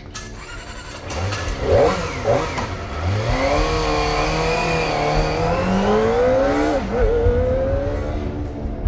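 Kawasaki ZX-25R's 250 cc inline four-cylinder engine giving two short revs, then accelerating with its pitch climbing steadily for several seconds, with a brief dip about seven seconds in before it climbs again.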